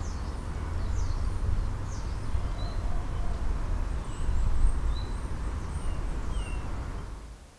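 Small birds chirping, short high calls scattered throughout, over a steady low rumble; the whole fades out near the end.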